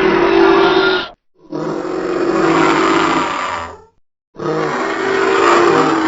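Made-up Quetzalcoatlus pterosaur calls, built from edited bird and monster sound effects: three long, raspy calls at a low steady pitch. The first ends about a second in, and the next two last about two and a half seconds each, with short silences between them.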